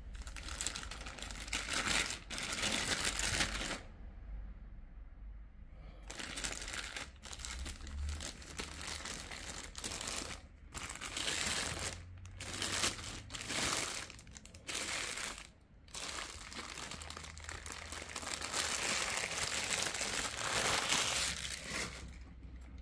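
Clear plastic packing bag crinkling and rustling as it is handled and pulled off, in long bursts with a pause about four seconds in and brief breaks after that.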